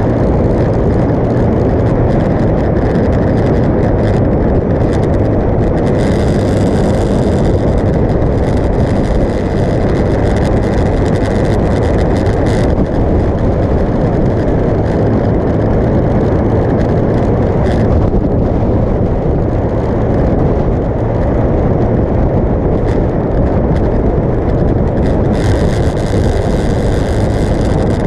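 Motorcycle cruising at steady highway speed: a constant mix of engine hum and wind rush over the microphone, with no change in pace.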